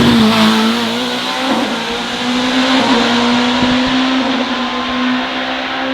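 Hillclimb race car's engine at full throttle, loudest as it passes at first and then slowly fading as it climbs away. Its pitch holds steady with a couple of brief dips.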